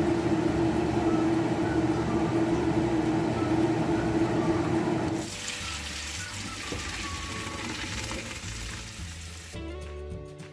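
Water running hard from a tap. About five seconds in it changes to a thinner, hissier spray.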